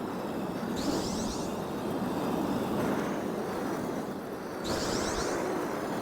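Marbles rolling along a marble run track: a steady rolling rumble, with a short high rattle about a second in and again near the end.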